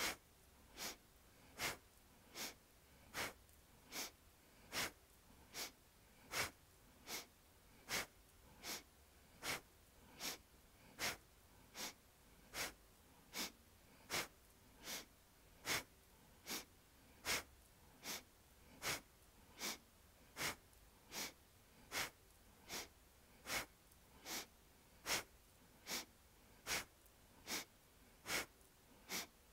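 Rhythmic yogic breathing: short, sharp inhales and exhales alternating evenly, about five breaths every four seconds, each one timed to a swing of the torso to the left or right.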